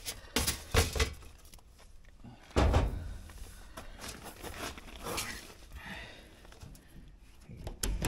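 Several knocks and clicks of tools being handled, with one heavy thump about two and a half seconds in and smaller knocks after it.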